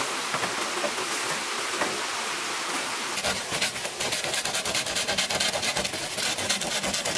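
Folding pruning saw cutting through a green bamboo pole in fast back-and-forth rasping strokes, starting about three seconds in. Before that, only a steady hiss of running water with a few light knocks of bamboo poles being handled.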